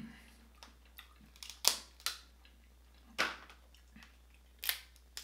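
Snow crab leg shell cracking as it is snapped apart by hand: four sharp cracks with smaller crackles between them.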